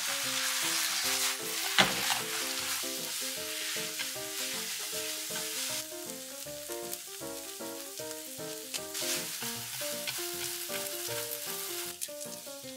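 Ramen noodles and sliced vegetables sizzling in a hot nonstick frying pan as they are stir-fried with chopsticks, with a sharp knock about two seconds in. The sizzle softens about halfway through.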